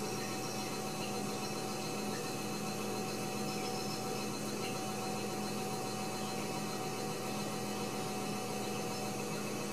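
Steady background hiss with a faint constant hum, unchanging throughout, with no distinct sounds.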